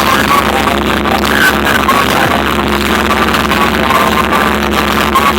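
Loud electronic dance music played through a trailer-mounted car sound system (carretinha de som), with a heavy, steady bass.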